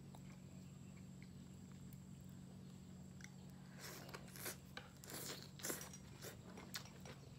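Close-miked eating of grilled beef rolls with bell pepper and enoki mushrooms: biting and chewing, with a run of short, sharp crunching clicks from about halfway through. A low steady hum sits underneath.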